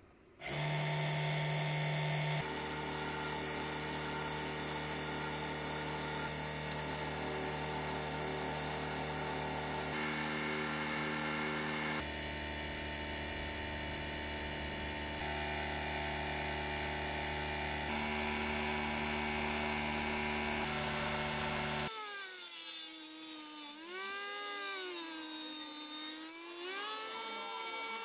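Small electric motor of a restored mini lathe running with a steady whine, its tone shifting abruptly every few seconds. In the last few seconds the pitch wavers down and back up several times, as the speed changes.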